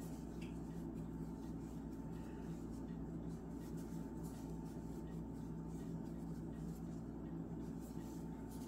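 Faint rustling of cotton yarn being worked with a metal crochet hook through double crochet stitches, over a steady low hum.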